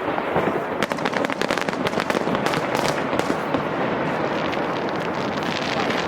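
Fireworks going off: a dense run of rapid crackles and pops that thins out in the second half.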